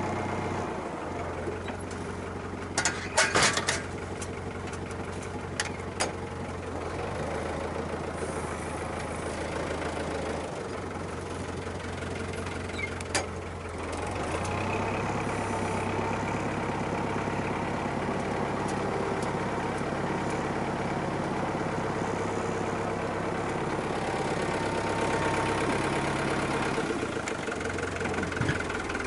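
Farm tractor's diesel engine running steadily, with sharp metallic clanks about three seconds in and again around six and thirteen seconds; the engine note shifts and grows slightly louder around fourteen seconds.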